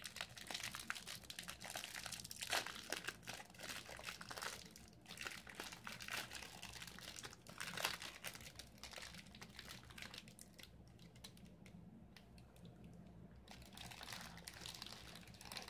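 Crinkling of a packaged snack cupcake's wrapper being handled and opened, in a busy run of crackles for about ten seconds that then dies down, with a little more rustling near the end.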